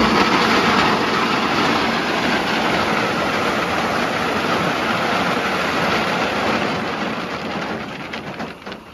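Load of rock pouring out of a raised dump-truck bed and sliding down the launch ramp into the lake water, a steady rush that fades away over the last two seconds with a few knocks as the last stones fall.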